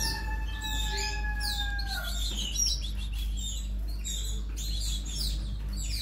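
Canary nestlings' begging calls: many quick, high chirps while they are being hand-fed. A steady high tone is held over the first two seconds and breaks off about two seconds in.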